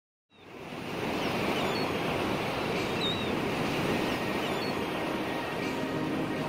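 Sea waves churning and splashing against a concrete pier: a steady wash of surf that fades in during the first second.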